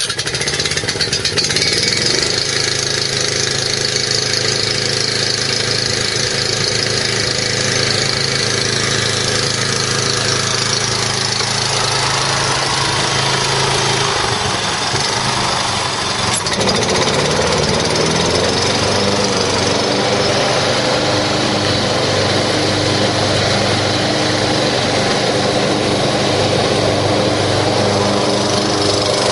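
Scag 36-inch walk-behind mower's 14 horsepower Kawasaki FB460V engine starting up and running steadily. Its note shifts and dips about halfway through, then settles to a steady run.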